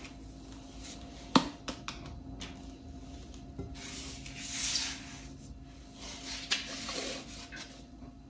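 Spatula and springform pan handled while the cheesecake filling is levelled: a sharp knock about a second and a half in, a few light clicks, then two stretches of scraping. A faint steady hum runs underneath.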